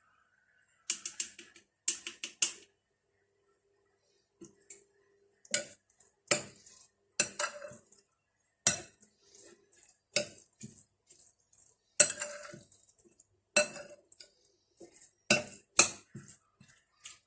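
Metal cutlery clinking against dishes in sharp, irregular knocks: a quick run of several clinks about a second in, then single clinks every second or so.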